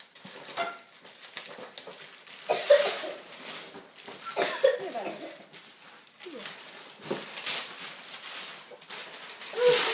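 Wrapping paper tearing and rustling in several short bursts as presents are unwrapped, with a few short vocal sounds mixed in.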